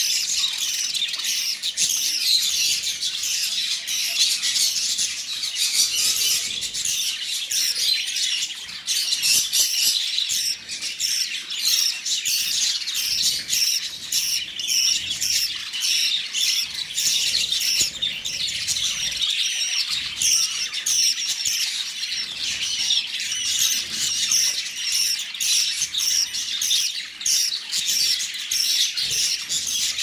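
Budgerigars chirping and squawking without pause, a dense run of short, high calls several times a second, as a parent feeds its chicks in the nest and the chicks beg.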